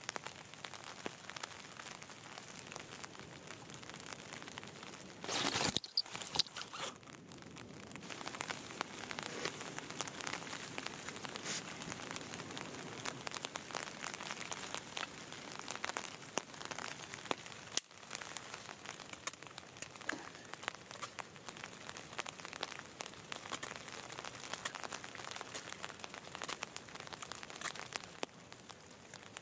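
Nylon tarp crinkling as it is handled, then a knife whittling wooden tent stakes: scattered small scrapes, crackles and ticks, with a louder rustling burst about five seconds in.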